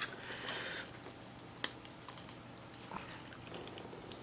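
Handle of a metal ladle being twisted, jiggled and pulled on its shaft: faint scattered clicks and a brief scraping rasp in the first second as the handle is worked loose.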